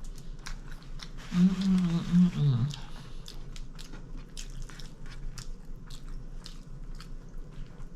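Close-miked mouth sounds of a person eating a crispy chicken club sandwich: crunchy biting and chewing with many small clicks, and a short hummed "mmm" of enjoyment about a second and a half in.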